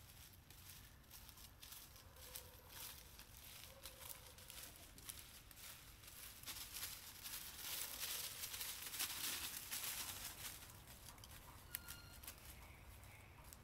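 Faint rustling and crackling of leaves and twigs, with many small snaps, louder around the middle.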